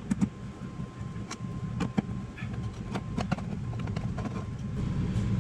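Scattered sharp clicks and taps from hands and a tool working on a wall light switch and its screws during disassembly, over a steady low hum.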